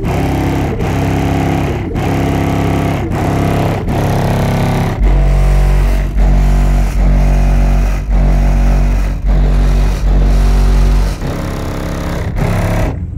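Bass-heavy music played very loud through a truck's car-audio system. A run of very deep bass notes, each about a second long, dominates the middle, and the music cuts off suddenly just before the end.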